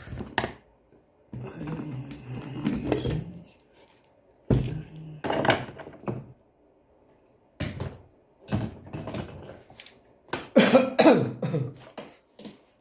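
Scattered knocks and thunks of hand tools being handled and packed away, mixed with short bursts of a person's voice.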